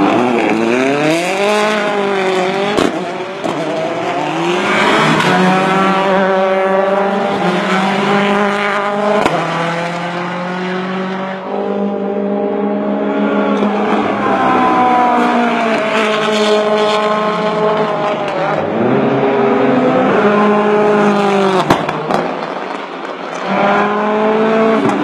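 Ford Fiesta rally car's engine driven hard, its revs climbing and dropping again and again through gear changes and corners, with a few sharp cracks along the way.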